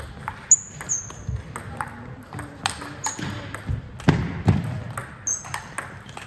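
Table tennis rally: a plastic table tennis ball clicking off the rackets and table in quick succession, some hits ringing with a short high ping, echoing in a large hall. A few heavier low thuds come about four seconds in as a player lunges wide.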